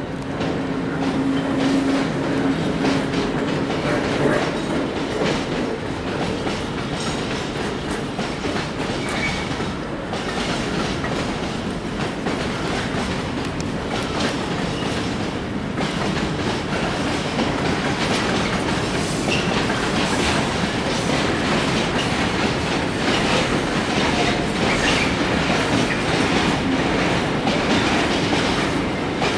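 Mixed freight train setting off from sidings and rolling past, its wagon wheels clattering over the rail joints in a steady stream of knocks. A steady hum is heard in the first few seconds.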